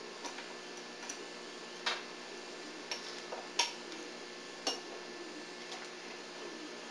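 Scattered sharp clicks and taps of hand tools on the T84J transmission's gearshift-housing cap screws as they are being removed, about seven in all, unevenly spaced, the loudest about three and a half seconds in.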